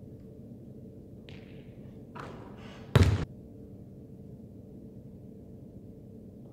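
A basketball strikes a hard surface once with a loud thud about three seconds in, followed by a quick second smaller hit. Fainter scuffing sounds come just before it, over a steady low hum.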